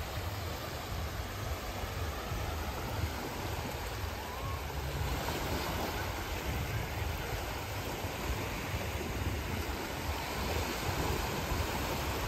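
Small Adriatic waves breaking and washing up a sandy shore as a steady surf wash, with a low rumble underneath.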